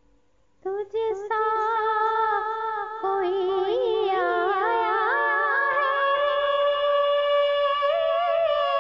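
A woman singing a naat without accompaniment, coming in just under a second in with long held notes that waver and slide between pitches.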